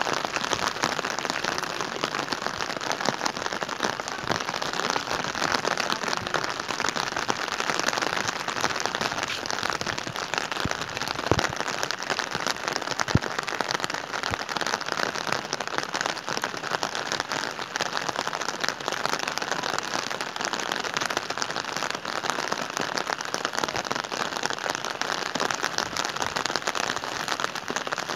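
Steady rain falling, a dense close hiss of raindrop ticks, with two sharper clicks about halfway through.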